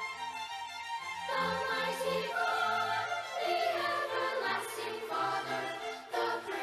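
A large children's choir singing in unison and harmony, with sustained low instrumental accompaniment beneath the voices.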